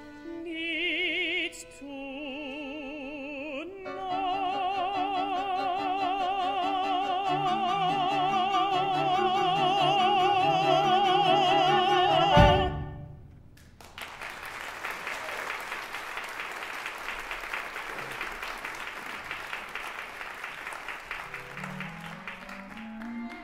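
A man's operatic voice sings the end of an aria with a small orchestra and holds a long high note with wide vibrato, cut off by a loud closing chord and stroke about twelve seconds in. Audience applause follows, with strings starting again near the end.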